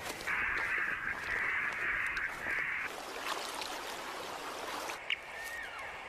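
Radio-tracking receiver: bursts of hiss in the first three seconds, then a short high beep from a tagged animal's transmitter about five seconds in.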